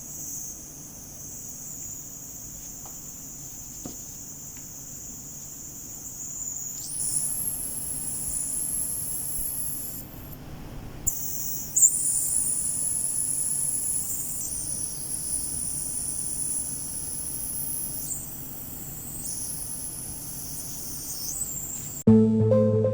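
High-pitched electronic whine from a homemade ultrasonic mist maker circuit, a thin steady tone that jumps higher about a third of the way in and then wavers, cuts out and changes pitch in steps several times.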